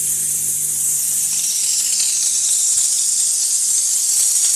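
Steam car wash machine's spray gun hissing steadily as it jets wet steam, set to its wettest setting; the hiss grows fuller about a second and a half in. A low hum fades out about a second in.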